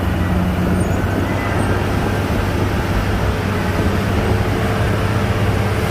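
Heavy earthmoving machine's diesel engine running steadily, a low even hum under a rough mechanical noise.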